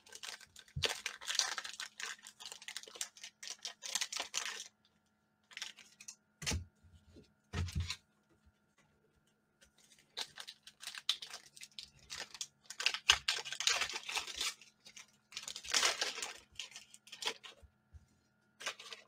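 Plastic wrapper of a trading-card pack being torn open and crinkled by hand, in two spells of tearing and crackling. A couple of dull knocks come in the pause between them.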